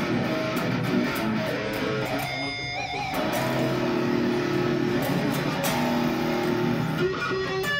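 Bacchus Stratocaster-style electric guitar with a roasted maple neck, played through an amplifier: a run of picked notes and chords, with a held note shaken with vibrato about two and a half seconds in.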